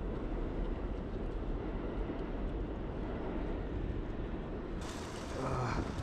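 Steady low rumble of snowstorm wind buffeting a body-worn microphone, mixed with city street noise. Nearly five seconds in, the sound turns abruptly brighter and hissier, and a brief louder rush follows.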